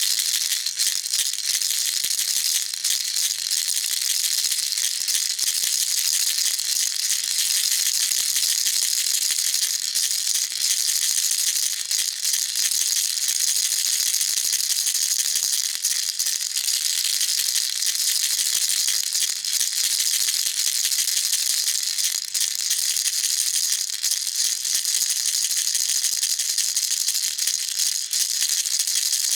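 Baby rattle shaken continuously: a dense, steady, high-pitched rattle of small beads or pellets clicking inside a shell, with no pauses.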